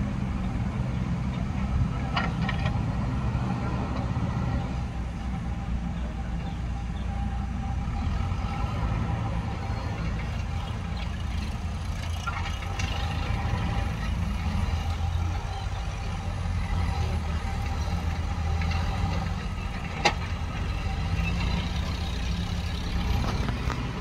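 Diesel engines of a JCB backhoe loader and farm tractors running steadily during earthmoving, with one sharp click about 20 seconds in.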